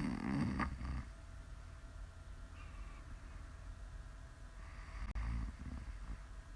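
A woman snoring in her sleep: two snores with a low flutter, the first fading about a second in and the next about five seconds in.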